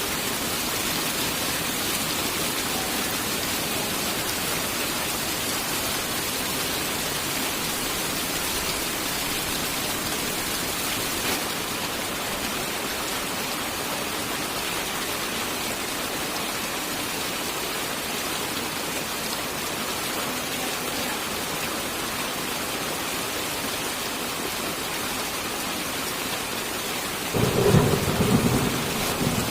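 Steady, heavy rain hissing throughout. Near the end a short, loud low rumble of thunder lasts about a second and a half and cuts off abruptly.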